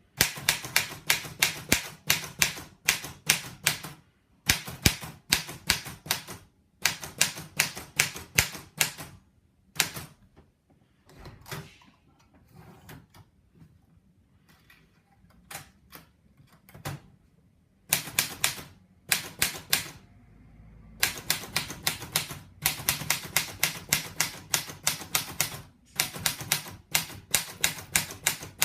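Erika portable typewriter being typed on: rapid runs of sharp key strikes, several a second, with a pause in the middle where only a few fainter mechanical sounds are heard before the typing picks up again.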